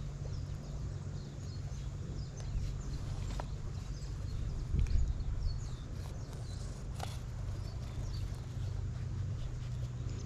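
Outdoor ambience with a steady low rumble, soft steps and rustling in the grass, and a few faint high chirps; one louder thump about five seconds in.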